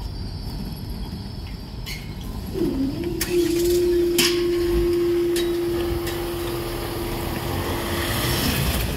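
Power-operated level crossing swing gates moving: a drive motor starts about two and a half seconds in and hums steadily at one pitch for about six seconds, with several sharp clunks from the gate mechanism.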